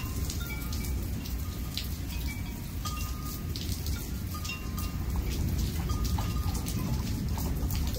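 Steady heavy rain, with many sharp drops and drips hitting close by. A few brief, faint ringing tones come and go.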